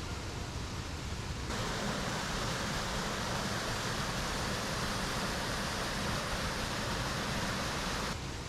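Steady rush of running water, a forest stream or falls, starting abruptly about a second and a half in and cutting off shortly before the end, over a softer background hiss.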